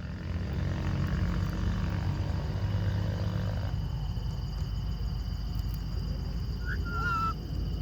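A steady low rumble throughout, with one short, wavering call from a ringneck parrot about seven seconds in.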